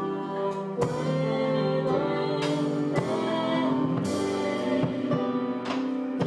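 Music from a song: sustained pitched instrumental notes with a few sharp strikes.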